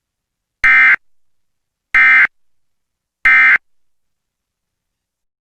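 Emergency Alert System end-of-message code: three short buzzy SAME digital data bursts, each about a third of a second long and a little over a second apart, marking the end of the alert message.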